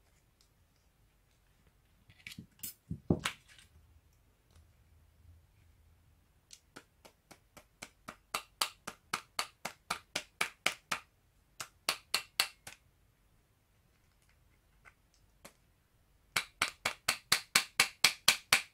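Light, rapid tapping on the spindle and ball bearings of a Sony EDV-5000 VCR head drum, seating the bearing in the drum. There are a few louder knocks about three seconds in, then runs of sharp taps at about four a second, and a quicker run of about five a second near the end.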